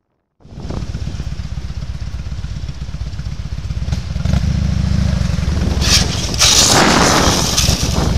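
Motorcycle engine running with road and wind noise on the bike-mounted microphone, cutting in abruptly about half a second in. It gets louder from about four seconds, and a loud rushing noise rises over it from about six to eight seconds.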